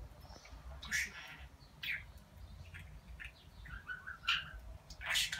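Pet budgerigars chirping: a few sharp, high chirps spaced about a second apart, with softer warbling chatter between them.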